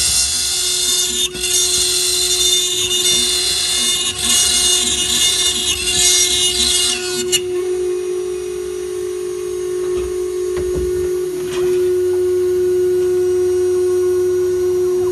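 Wood-carving router spindle running with a steady high whine as the bit cuts into wood, making a harsh, loud hiss for about the first seven seconds. The cutting noise then drops away, leaving the spindle whining more quietly.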